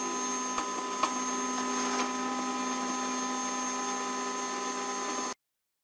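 Anet A8 3D printer's Z-axis stepper motors turning the freshly aligned and greased lead screws to move the carriage: a steady whine with a few light clicks, cutting off sharply near the end.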